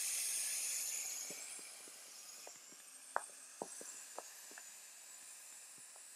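Air hissing out through the valve of a roll-top wash bag as hands press it down to deflate it, loud at first and fading to a quieter hiss about two seconds in. A few soft clicks from handling the bag.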